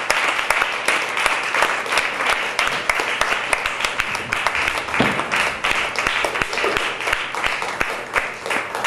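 Audience applauding, many hands clapping together, thinning out a little near the end.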